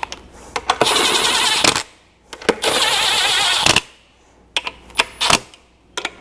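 Low-torque cordless impact driver hammering fasteners down in two runs of about a second each, with sharp clicks between the runs.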